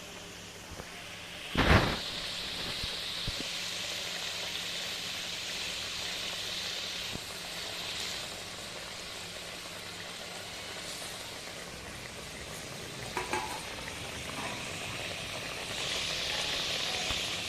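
Eggplant cooking in a little boiling water in a pan, sizzling steadily. There is one loud knock about two seconds in, and a few light clinks of stirring later on.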